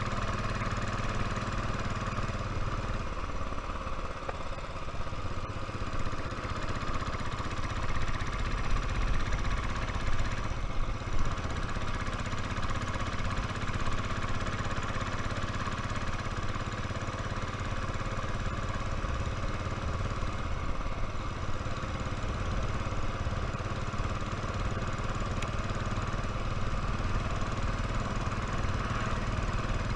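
Royal Enfield motorcycle engine running steadily under way. Its note changes about three seconds in.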